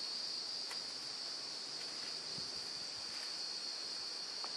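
Insects shrilling in a steady, unbroken high-pitched drone, with a couple of faint ticks.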